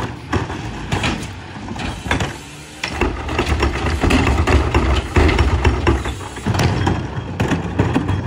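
Hydraulic cart tipper on a McNeilus rear-loader garbage truck dumping a plastic wheeled trash cart into the hopper and lowering it. The truck's engine revs up about three seconds in to drive the hydraulics, over the clatter and bangs of the cart and falling trash.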